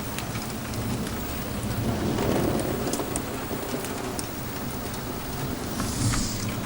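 Steady rain falling during a thunderstorm, with scattered sharp drop impacts and a low rumble of thunder that swells about two seconds in.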